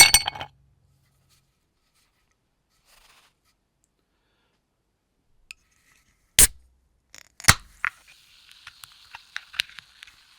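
Ice cubes clinking into a glass for a moment at the start. About six seconds later, two sharp clicks a second apart as an aluminium soda can's pull tab cracks it open, followed by the soda's steady fizz with many small crackles of carbonation.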